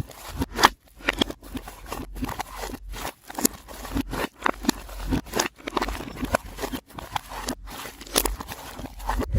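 Slime being squished and handled, making irregular sticky clicks, pops and crackles, played back in reverse.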